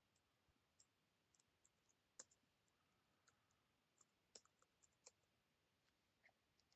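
Faint, irregular clicks of a computer keyboard and mouse as a command is typed, about a dozen in all.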